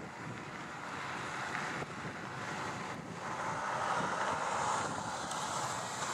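Gusty wind buffeting the microphone over the distant Pratt & Whitney PT6 turboprop of a Pilatus PC-12. The engine noise grows louder from about three seconds in, with a high hiss building toward the end.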